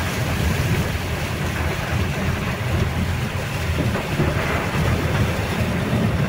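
Steady low rumble of a vehicle moving through a flooded road in heavy rain, with a rushing hiss of rain and water, heard from inside the vehicle.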